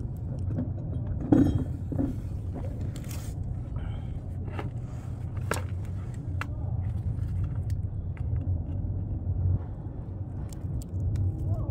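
Black corrugated plastic drainage pipe being handled in a dirt trench: scattered scrapes and knocks, one louder knock about a second and a half in, over a steady low rumble.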